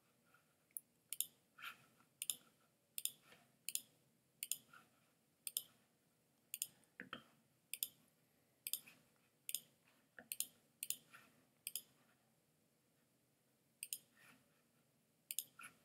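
Faint computer mouse clicks: a steady run of sharp clicks, many in quick pairs, about one or two a second, with a pause of about two seconds near the end.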